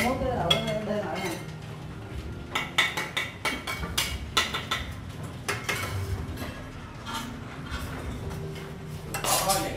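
A bricklayer's steel trowel clinking and scraping against mortar and clay bricks: a run of short, sharp taps and scrapes, bunched about a third of the way in.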